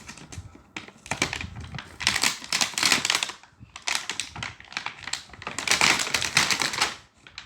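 Packaging being torn open and handled by hand: several bursts of dense crackling and rustling.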